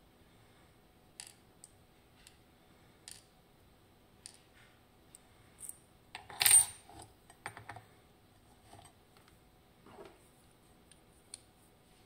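Small metal lock parts handled while a Ruko 500 pin-tumbler cylinder is taken apart: the brass plug, key and steel housing click and tap now and then. One loud ringing metallic clatter comes about six and a half seconds in, followed by a few quicker clicks.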